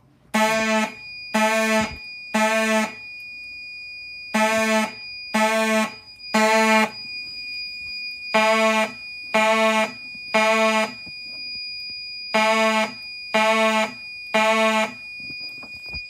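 Two 1990s Simplex mechanical fire alarm horns buzzing very loudly in the temporal-three (code 3) evacuation pattern: three short blasts about a second apart, then a pause, repeated four times.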